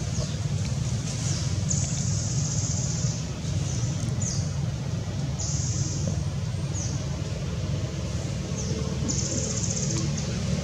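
A steady low rumble with high insect buzzes on top; each buzz lasts about a second and comes three or four times.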